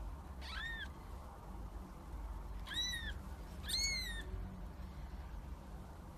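A cat meowing three times in short, high, rising-and-falling meows, over a steady low hum.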